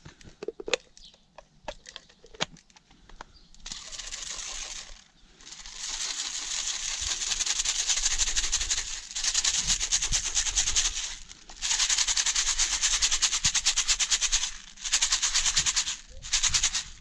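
Fertilizer granules rattling in a granulation sieve box as it is shaken, in about six bursts of rapid rattling with short pauses between them. The granules are being sieved by size to check their granulation. A few clicks and knocks of handling come before the shaking starts.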